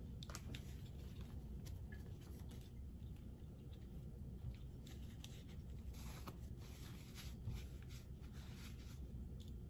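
Faint rustling and crinkling of a paper towel face mask being handled and pressed against the face, a few soft scrapes scattered through, over a low steady room rumble.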